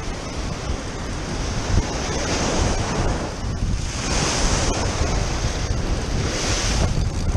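Ocean surf breaking and washing onto the beach below, the hiss swelling with each wave every couple of seconds, with wind rumbling on the microphone.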